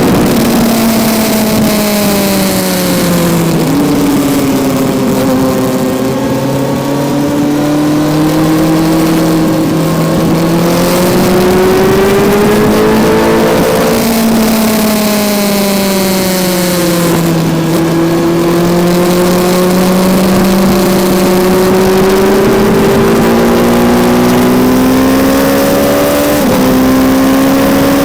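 Kawasaki Z900's inline-four engine heard onboard at track pace. The revs fall with a quick step down about four seconds in, then climb under acceleration and fall again midway. After a long slow climb, the pitch drops sharply near the end.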